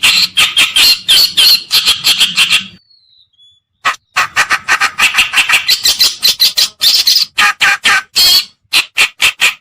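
Kerakbasi (reed warbler) song played as a bird-lure call: loud, harsh, rapid chattering phrases of many quick notes. There is a pause of about a second roughly three seconds in, and the phrases grow choppier near the end.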